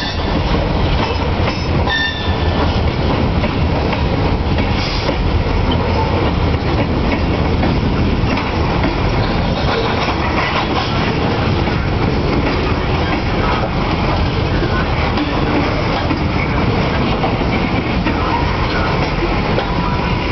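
Diesel locomotives switching a string of autorack freight cars: a steady loud rumble of engines and rolling cars, with a brief wheel squeal about two seconds in.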